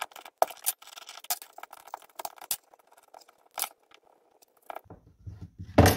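Brake line flaring tool being worked on a copper brake pipe: irregular small metallic clicks and clinks as the tool is turned and the pipe is freed from its clamp block, finishing the flare on the pipe's end. A louder knock comes near the end.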